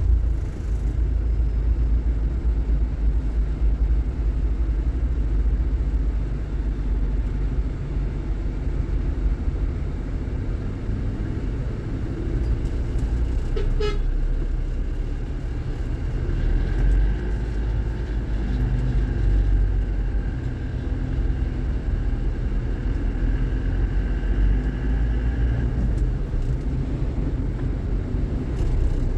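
Steady low rumble of a car's engine and road noise heard from inside the cabin while crawling in a toll-road traffic jam. A short horn toot comes about halfway through, and a faint steady whine follows in the second half.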